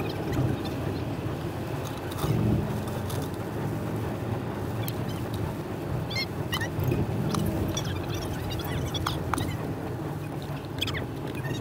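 A car's road noise on an expressway, played back at four times speed: a steady low rumble with quick high chirps and clicks scattered over it.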